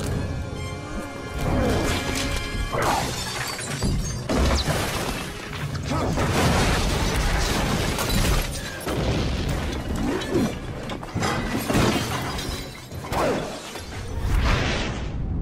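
Cinematic logo-sting music layered with sound effects: several crashing, shattering hits and sweeping swells.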